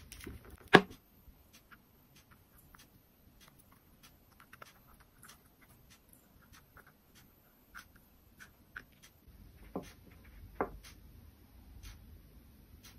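Hands handling a smartphone and its clip-on wide-angle lens: a sharp knock about a second in, scattered light ticks and clicks as the lens is turned and handled, and two firmer knocks near the end.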